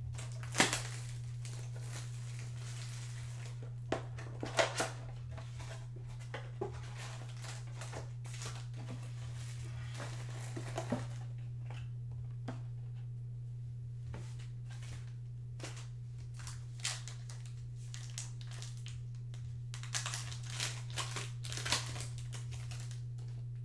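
Plastic wrapping crinkling and tearing as a trading-card blaster box is unwrapped and a card pack is ripped open, in scattered crackly bursts, clustered early and again near the end. A steady low hum runs underneath.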